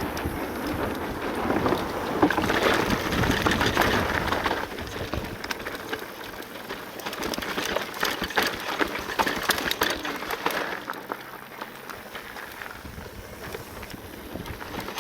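Full-suspension electric mountain bike rolling fast down a dirt and gravel trail: tyre noise on loose ground with wind on the microphone and a steady stream of rattles and clicks from the bike. Loudest in the first few seconds, quieter after about ten seconds.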